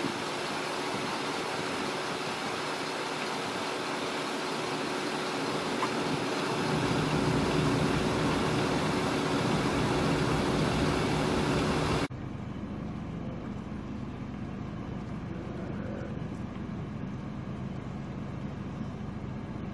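Steady motor-vehicle engine and road-traffic noise with a constant hum. About twelve seconds in it changes abruptly to a quieter, lower steady hum.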